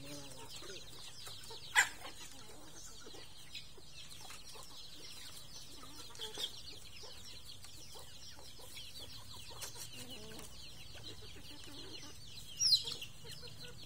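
A flock of bantam chickens foraging with scattered soft clucks. A sharp click comes about two seconds in, and a brief high call near the end.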